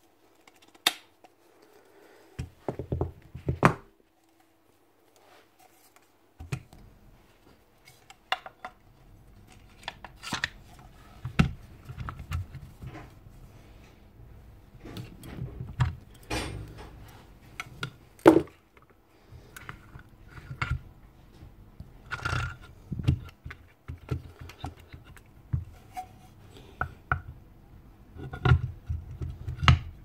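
Metal parts of a Ryobi ERT-1150V router being handled on a workbench: irregular clinks, taps and knocks as the motor armature and aluminium housing are moved and fitted together, with one sharper knock about two-thirds of the way through.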